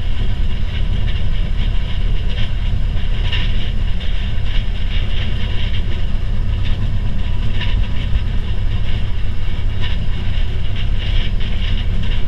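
A 1969 Fairmont railcar running along the rails, heard from inside its cab. Its low, steady drone is mixed with irregular clatter and rattling from the wheels and the cab.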